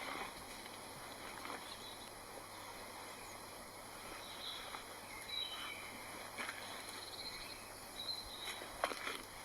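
Quiet woodland ambience with a few short bird chirps, and occasional light knocks and rustles from handling tent poles and canvas, the sharpest knock near the end.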